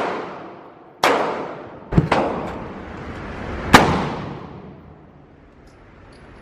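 Gunshots at a shooting range: a shot about a second in, two in quick succession near two seconds, and another near four seconds, each with a long echoing decay.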